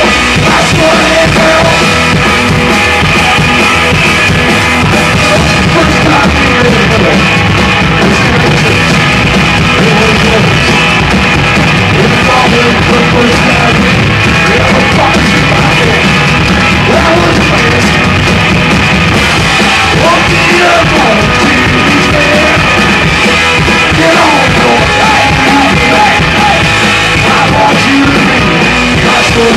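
Live rockabilly trio playing loud and steady: electric guitar, upright bass and drum kit.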